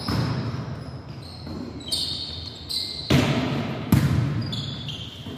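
Volleyball rally: a ball being struck several times, sharp slaps off hands and forearms that echo around a gymnasium, the loudest about three and four seconds in, with sneakers squeaking on the court floor between hits.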